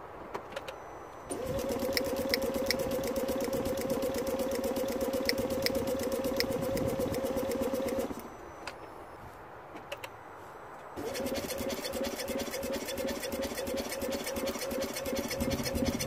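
Smart Fortwo 451's 1.0-litre three-cylinder petrol engine cranking on the starter without firing, in two runs: about seven seconds from a second in, then about five seconds more near the end. It is a crank-no-start, with spark present at the plugs.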